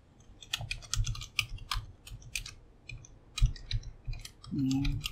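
Computer keyboard typing: irregular keystroke clicks as a line of code is entered.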